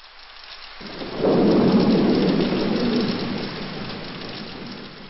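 Thunderstorm sound effect: a rolling thunder rumble that swells up about a second in and slowly dies away over a steady hiss of rain.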